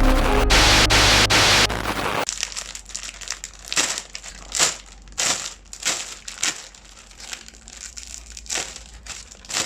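Plastic wrapping crinkling and rustling as it is handled, in irregular short bursts.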